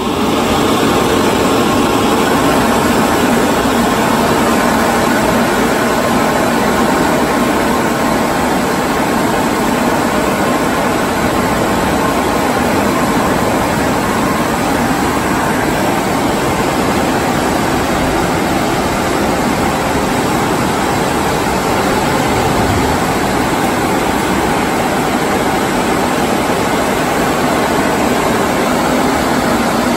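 Car wash exit dryers blowing, a loud, steady rush of air with a steady hum from the blower fans.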